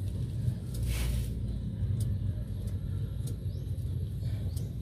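Suzuki F6A three-cylinder engine cranking on its starter motor with a steady low rumble, not catching: the no-start fault is not yet cured.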